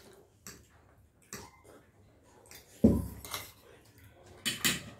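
Forks clinking and scraping on ceramic plates as people eat noodles, in scattered short clicks. A heavy dull thump a little under three seconds in, and two sharp clatters near the end.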